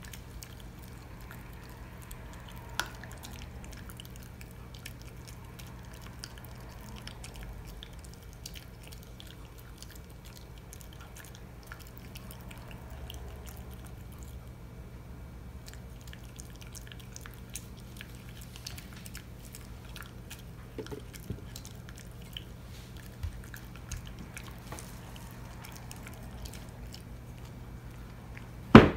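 Small dog licking and gnawing at a bone-shaped chew treat: scattered faint clicks and smacks over a steady low hum, with one sharp loud click near the end.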